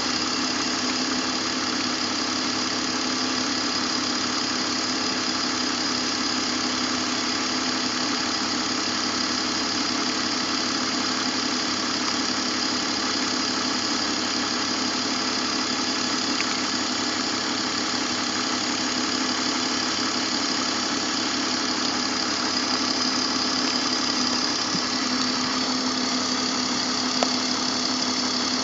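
BMW M54 inline-six engine idling steadily.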